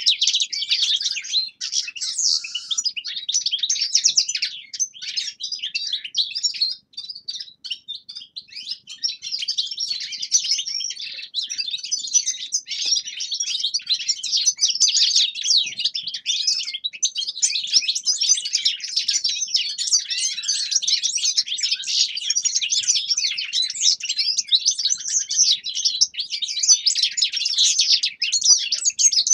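Several caged finches, European goldfinches among them, singing and twittering together in a dense, continuous high-pitched chatter of quick chirps and trills, thinning briefly a few seconds in.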